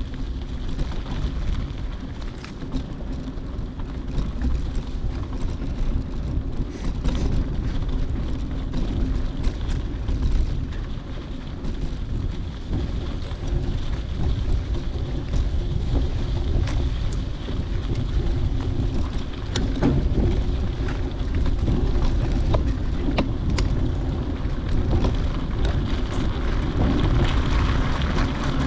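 Wind buffeting the microphone: a steady low rumble with scattered small clicks.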